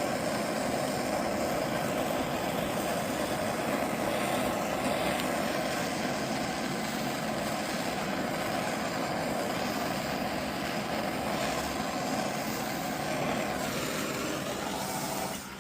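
Steady rushing noise of a blowtorch flame being played over carved wood to darken its surface; it drops away near the end.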